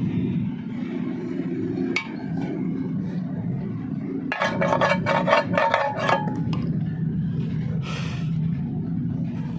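Rapid metallic clinking, about six strikes a second for roughly two seconds starting about four seconds in, over a steady low rumble.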